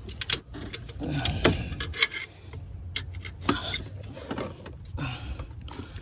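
A screwdriver prying and scraping at parts in an engine bay, giving a scatter of sharp, irregular clicks and knocks.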